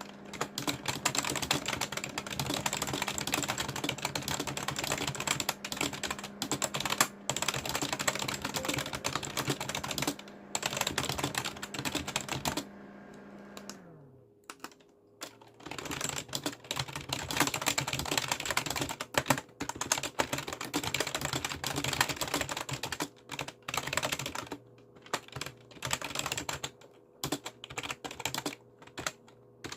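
Fast, continuous typing on a Daiso budget computer keyboard, dense clicking keystrokes that stop for a few seconds about halfway through and then resume. A faint low hum under the first half slides down in pitch and dies away during the pause.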